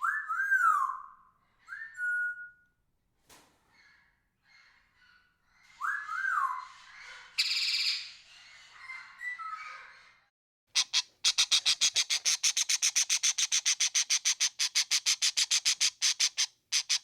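Parrot vocalising: a few whistles that rise and fall, soft chattering, and one harsh squawk. In the second half it gives a fast, even run of harsh calls, about six a second.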